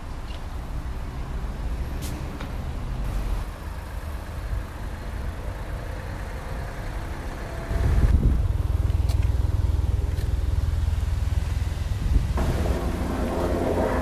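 Low wind rumble and handling noise on a phone microphone, which gets louder about halfway through, with a few light clicks.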